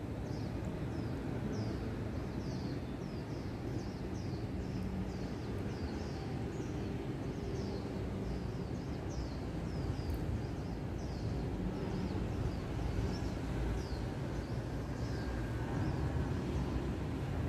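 Birds chirping in the trees over a steady low rumble: short, high calls that fall in pitch, repeated about twice a second.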